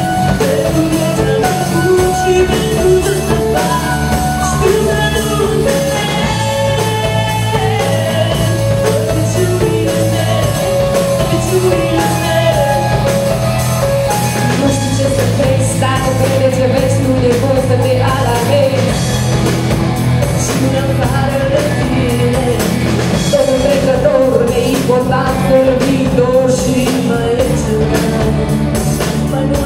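A live pop-rock band playing, with electric guitar, bass, keyboard and drums under female lead singing.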